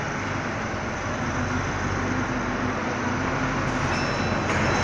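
Forklift engine running steadily while the forklift unloads pallets from a truck, with a faint tone that comes and goes over the engine noise.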